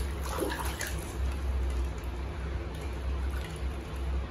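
Small splashes and light sloshing of water as a child's hands move plastic rings and balls around in a shallow inflatable pool, with a few quick splashes in the first second. A steady low hum runs underneath.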